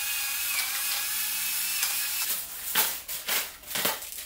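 Pepper mill grinding black pepper onto a raw steak: a steady grind at first, then short grinding strokes about two a second from about halfway on.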